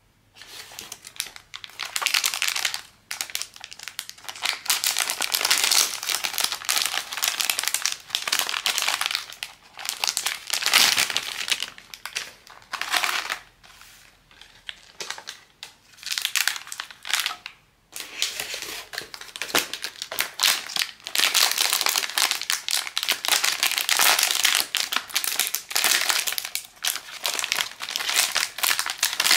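Blind-bag packaging crinkling and rustling as it is handled and opened, in stretches broken by short pauses.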